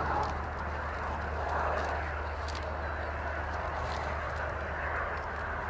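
Saab 39 Gripen fighter jet's engine heard as a steady rushing jet noise while the jet flies low.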